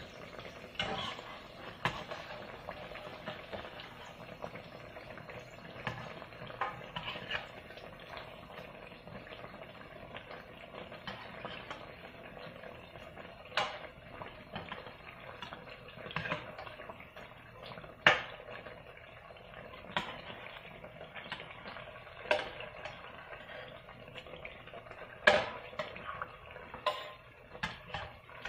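Vegetable fritters frying in hot oil, a steady sizzle and bubbling, as a metal spatula turns them, clinking and scraping against the metal pot at irregular intervals. The fritters are being turned once their undersides have browned.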